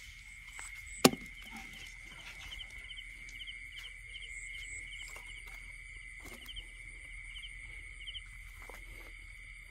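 Night insect chorus: a steady high-pitched drone with quick chirps repeating about three times a second. A single sharp knock comes about a second in, and a few softer knocks or sloshes follow later.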